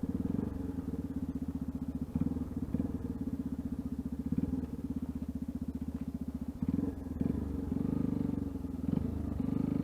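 Yamaha Ténéré 250's single-cylinder four-stroke engine running at low revs through a Roncar aluminium sport exhaust tip: a steady, rapid, low pulsing exhaust note that swells a little a few times in the second half.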